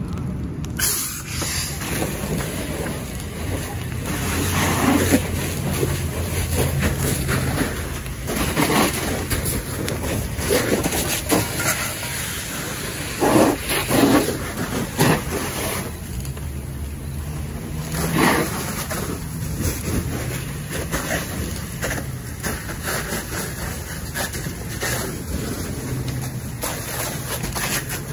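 Fire hoses spraying water onto burning debris and a burning pickup truck: a steady rushing hiss of water stream, fire and steam over a low steady engine drone, with a few louder moments about halfway through.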